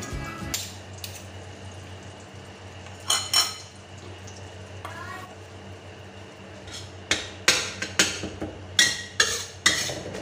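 Cooking utensils stirring in a stainless steel wok: a spatula and spoon scraping and knocking against the pan as salted egg yolk is fried with curry leaves. Two sharp knocks come about three seconds in, then a run of clanks from about seven seconds on, over a steady low hum.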